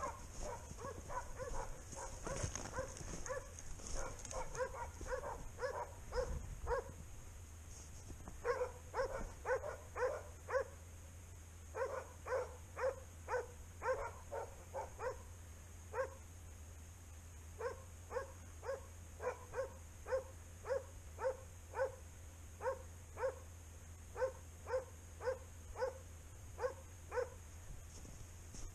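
Hunting dogs barking at bay in runs of about two barks a second with short pauses: the sign that they have a wild boar held in place. A rustle of brush comes in the first few seconds.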